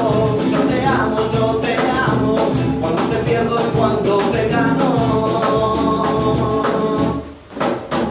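Live acoustic music: a nylon-string Spanish guitar strummed in a quick, steady rhythm together with a second guitar. The music breaks off suddenly about seven seconds in and starts again a moment later.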